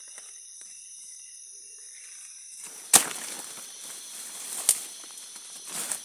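Footsteps and rustling through dry leaf litter and undergrowth, with a loud sharp crack about three seconds in and a second one less than two seconds later. A steady high insect hum runs underneath.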